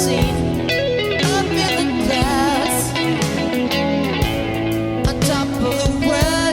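A pop-rock song in a guitar-led passage, with bending, wavering melody notes over bass and steady drum hits.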